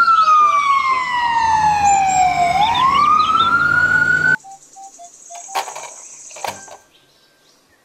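Ambulance siren wailing, its pitch falling slowly and then rising again, cut off abruptly about four seconds in. After it, a couple of short clatters of plastic toys being handled in a bin.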